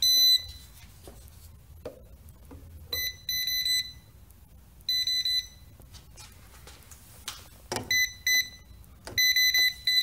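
Non-contact voltage tester pen beeping in about five bursts of rapid, high-pitched beeps as it is held to the switches and outlet, signalling that the freshly re-powered circuit is live.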